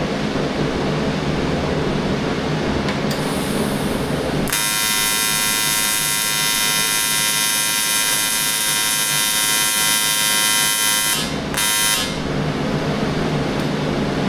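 AC TIG welding arc on aluminium: a harsh, even buzz that strikes about 4 seconds in, drops out for a moment around 11 seconds, restarts and stops about 12 seconds in. Before it a steady machine hum runs. The arc is burning right through the 1/8 in aluminium with too little filler, held at one amperage because the remote was set to 2T instead of the foot pedal.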